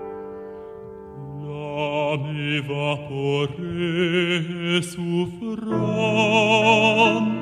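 Slow music for the dance. A held chord fades, then from about a second in long sung notes with vibrato come in over a low held note.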